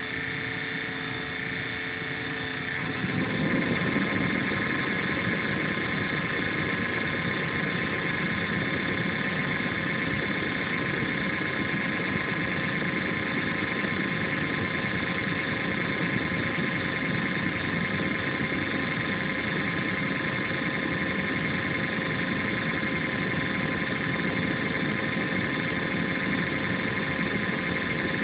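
INSYS GameForce laptop's cooling fan running with a steady whir and several whining tones. The owner finds the noise strange. About three seconds in it speeds up and gets louder, then holds steady. It is heard through a phone microphone and is a little distorted.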